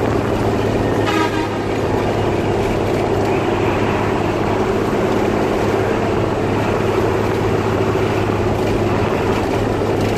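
Hino 1J bus diesel engine running steadily at highway speed, a constant low hum. A brief horn toot sounds about a second in.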